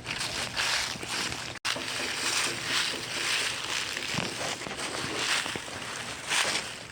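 Footsteps walking outdoors, each step a crunching swish underfoot, coming irregularly about every half second to a second, with a brief cut in the sound about a second and a half in.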